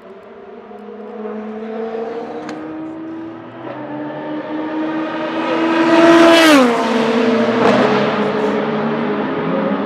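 Oreca 07 LMP2's 4.2-litre naturally aspirated Gibson GK-428 V8 under hard acceleration, its pitch climbing steadily. It passes close about two-thirds of the way through, loudest there, with a sharp drop in pitch as it goes by, then carries on down the straight at a lower, steady note.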